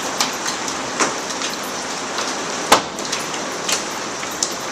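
Dime- to quarter-size hail and rain pelting the roof of a glassed-in porch: a steady hiss of falling ice and water with scattered sharp popping hits, the loudest about two and a half seconds in.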